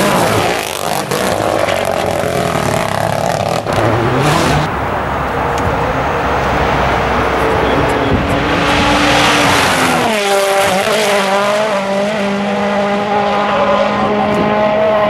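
Mini John Cooper Works WRC rally car at full speed on a gravel stage, its 1.6-litre turbocharged four-cylinder engine revving hard. The note climbs, drops sharply about ten seconds in as the car passes, then holds a steady pitch as it pulls away, with tyres scrabbling on loose gravel.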